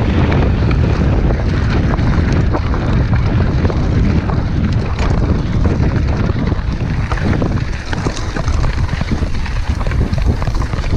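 Wind buffeting the action camera's microphone on a fast mountain-bike descent, over a steady rumble of tyres rolling on loose gravel and dirt. Frequent small knocks and rattles come from the bike jolting over stones.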